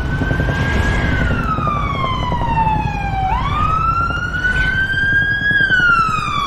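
A siren wailing in long, slow sweeps: its pitch falls, climbs sharply then slowly again about three seconds in, and falls once more near the end, over a low rumbling noise.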